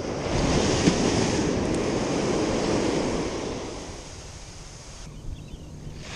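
Ocean surf washing up the beach, with wind buffeting the microphone; louder for the first three seconds, then easing.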